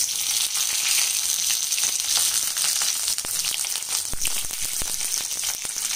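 Chopped onion pieces sizzling steadily in hot refined oil, with many fine crackles.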